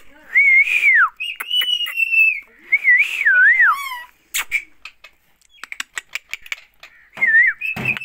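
Indian ringneck parakeet whistling: three drawn-out clear whistles in the first half, one sliding down at its end, then a run of short clicks and a brief whistle near the end.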